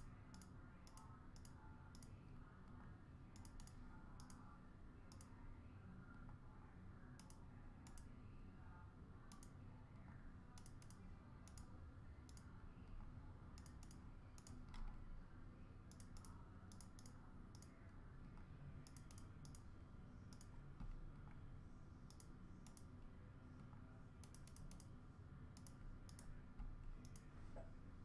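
Faint computer keyboard typing and mouse clicking: scattered sharp clicks in quick clusters, over a steady low room hum.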